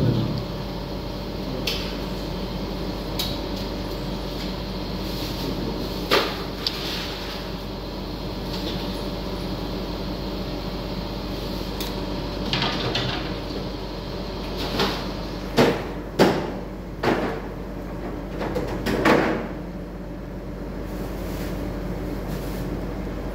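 A steady machine hum runs under scattered knocks and clatters on a steel kitchen counter. The loudest comes about six seconds in, and several more fall in a cluster between about fifteen and nineteen seconds in.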